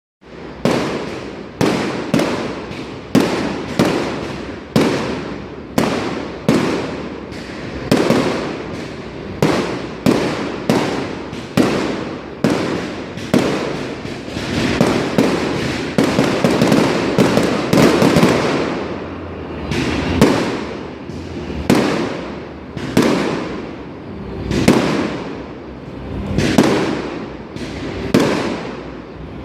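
Aerial fireworks bursting in a steady barrage, a sharp bang every second or so, each followed by a rolling echo, with a denser crackling stretch about halfway through.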